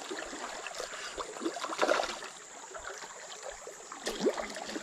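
Fast-flowing river water rushing, with splashes from a hooked hampala barb thrashing at the surface, loudest about two seconds in and again about four seconds in.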